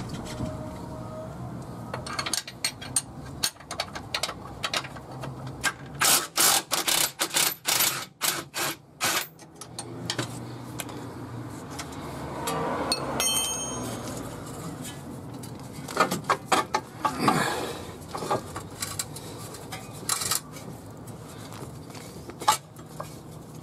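Hand tools working on a car's steel front suspension: metal clinks, knocks and runs of rapid ratchet-like clicking, thickest about a quarter of the way in and again past two thirds.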